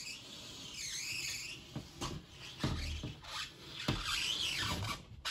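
Felt-tip marker drawn along a wooden board, giving squeaky scratching strokes that rise and fall in pitch, with a couple of low knocks as the board and jig shift.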